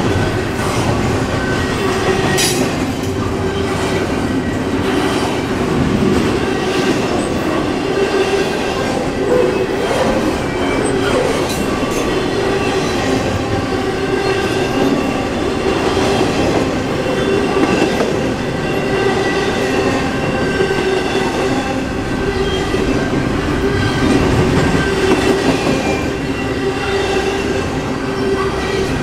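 Double-stack intermodal container well cars rolling steadily past: a continuous rumble and clatter of steel wheels on rail, with a steady high whine over it and a sharp clank about two seconds in.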